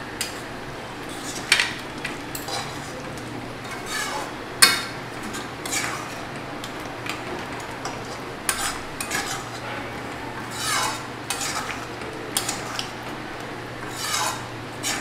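Wooden spatula stirring thick dal in a metal pan, scraping and knocking against the pan at irregular moments, with one sharper knock about four and a half seconds in. A steady low hum runs underneath.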